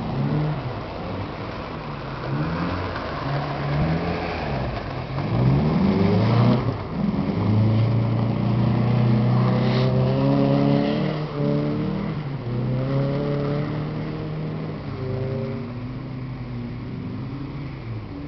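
Car engine revving hard under acceleration. Its pitch climbs sharply about five seconds in and holds high and steady for several seconds, then rises and falls in shorter pulls and fades toward the end.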